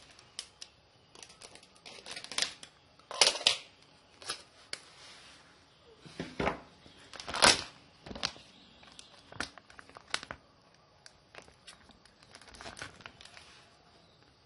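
Plastic packaging crinkling and rustling as it is handled, in irregular bursts; the loudest come a little after three seconds and at about seven and a half seconds.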